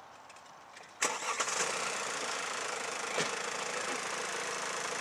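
A Mercedes-Benz saloon's engine being started about a second in, catching at once and then idling steadily.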